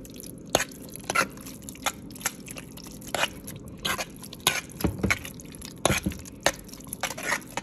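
A spoon stirring thick, creamy macaroni and cheese in a pot: irregular wet squelches of the sauce and sharp clicks of the spoon against the pot, several times a second.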